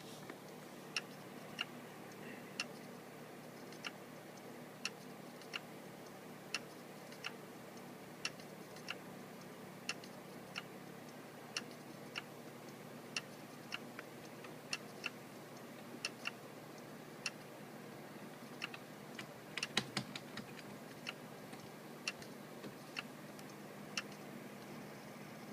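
Seagate FreeAgent external hard drive clicking repeatedly over a faint steady hum: sharp, irregular clicks about once a second, with a quick flurry of several clicks about three-quarters of the way through. The owner takes the clicking for a sign that the drive inside is going bad.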